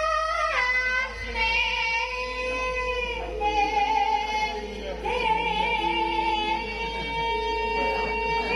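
A high, female-sounding voice singing Javanese sinden-style song in long held notes with a wavering pitch, over music accompaniment.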